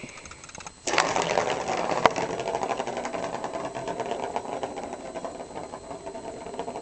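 A ball whirring around the plastic track of a round cat scratcher toy. It starts suddenly about a second in and runs on as a steady rattling whir that slowly fades as the ball loses speed, with one sharp click about two seconds in.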